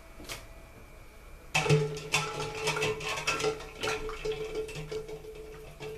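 Hard-boiled eggs and ice cubes clinking and knocking against a metal saucepan as a hand stirs through the ice water, starting about a second and a half in, over a steady low hum.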